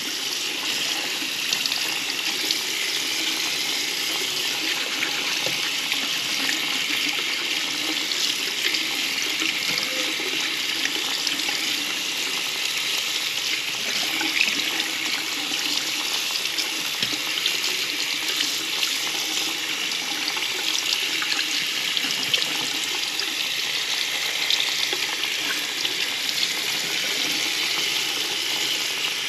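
Tap water running steadily into a sink while a dirty bathroom exhaust fan part is rinsed under it, with a few small clicks of the part against the sink.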